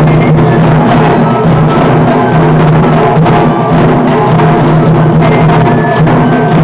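Several taiko drums played together by an ensemble, dense continuous strokes in a steady driving rhythm. Very loud throughout.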